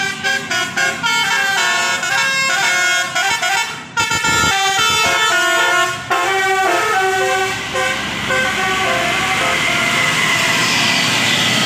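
Tourist bus's 'telolet basuri' multi-tone air horn, driven by a Takur horn module, playing a tune of quick stepping notes with a brief break about four seconds in. In the last few seconds the notes thin out over a steady hiss.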